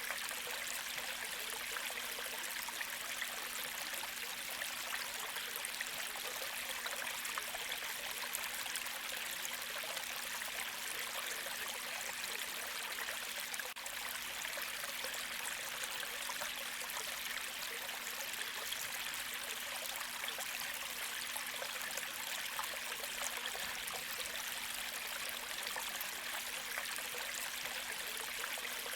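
A gentle creek flowing, a steady, even rush of water with no distinct splashes or breaks.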